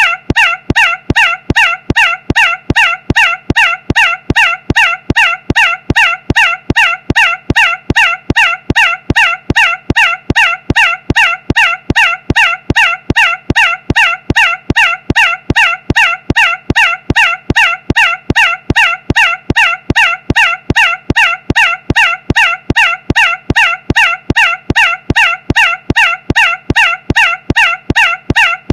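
The same short, harsh squawk-like blast repeated over and over in an unbroken mechanical loop, about two and a half times a second, every repeat identical and loud.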